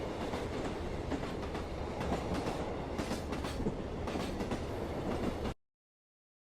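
Train running along the track, a steady rumble with a faint clickety-clack of wheels over rail joints about every half second. The sound cuts off suddenly near the end.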